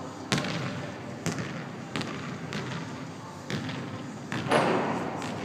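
Basketballs bouncing on a hardwood gym floor: single thuds a second or so apart, echoing in the hall, with a louder, longer hit about four and a half seconds in.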